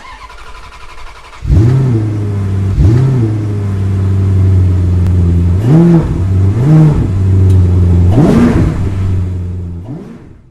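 Car engine idling and blipped five times, each rev rising and falling in pitch. The engine fades out near the end.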